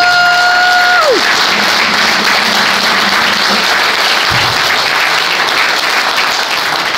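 A congregation applauding loudly, with one high 'woo!' cheer held for about a second at the start.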